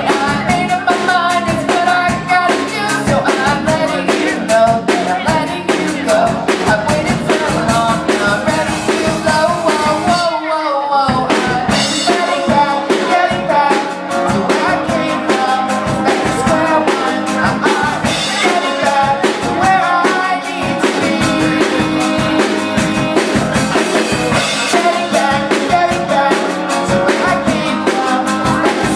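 Live band performing a song: acoustic guitar strummed, a man and a woman singing together, with a drum kit keeping the beat. About ten seconds in, the drums and low end drop out for a moment under a falling note, then the full band comes back in.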